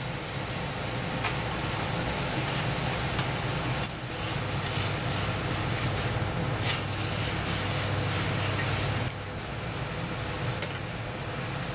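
Steady low rumble and hiss of a gas burner running under a small aluminium pot of boiling seaweed broth, with a couple of light clinks of utensils against the pot.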